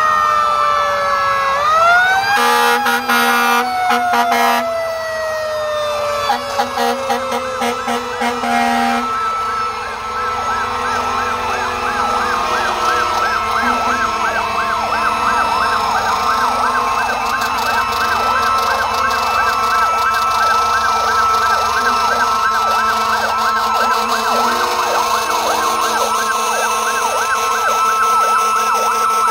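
Fire engine sirens: an electronic wail sweeping slowly up and down, with a horn sounding twice in the first several seconds. From about ten seconds in, a fast, evenly repeating yelp takes over, over a steady high tone.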